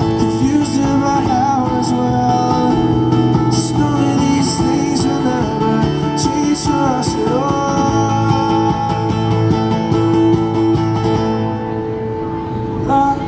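Acoustic guitar strummed with a man singing along, a live busking performance.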